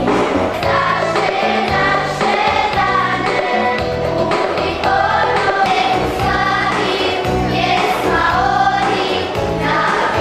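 Children's choir singing a song in unison, with an instrumental accompaniment underneath.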